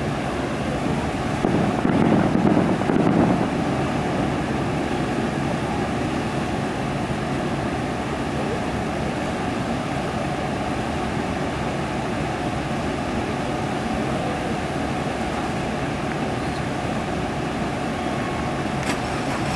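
A distant firework burst's low rumble arrives about a second and a half in and fades over two seconds, over a steady background noise.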